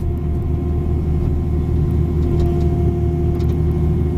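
Cat 305 mini excavator's diesel engine running steadily while digging, with a steady whine over the low drone that grows a little stronger about halfway through.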